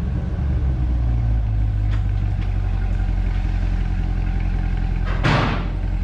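Mid-engine C8 Corvette's V8 running at low revs with a deep, steady note, with a brief louder whoosh about five seconds in.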